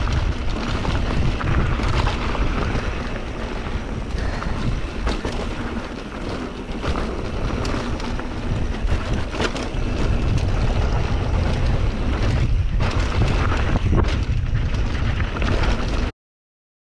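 Wind buffeting the microphone on a fast mountain-bike descent, with a steady low rumble and frequent rattles and knocks from the bike running over rough trail. It cuts off suddenly near the end.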